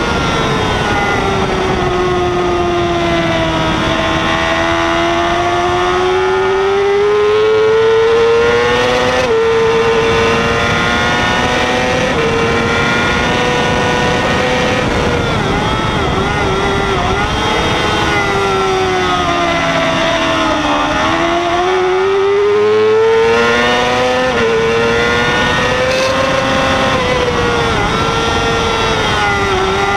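Yamaha R6's inline-four engine at race speed, heard from on board. The engine note climbs and falls with the throttle, with sudden pitch drops at gear changes about 9, 12 and 24 seconds in, and a deeper fall and climb back around 20 seconds in. Steady wind rush runs underneath.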